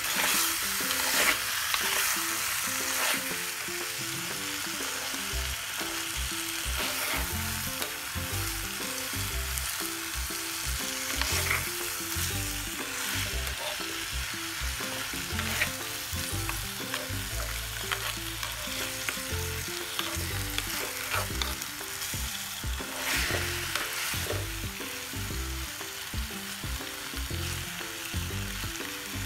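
Metal spoon stirring raw Indian anchovies and spices in a clay pot: a steady hiss with a few sharp clinks of the spoon against the pot.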